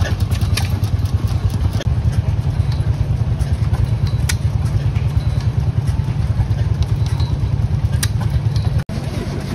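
Vintage stationary engine running steadily, driving a line shaft and flat belts to old workshop machines: a low, rapidly pulsing engine sound with a few sharp clicks from the belt-driven machinery.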